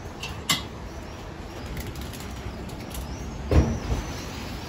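Metal doner kebab spit knocking against a vertical rotisserie grill as the loaded spit is mounted: a sharp click about half a second in and a heavier, deep clunk about three and a half seconds in, over a steady background noise.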